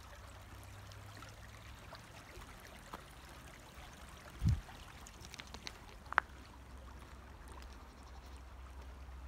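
Small stream trickling faintly under a steady low rumble. A single dull thump comes about halfway through, and a short sharp tick follows a couple of seconds later.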